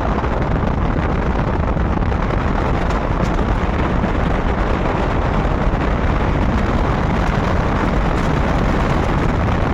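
Steady rush of wind and road noise from a moving car, with no changes in pitch or rhythm.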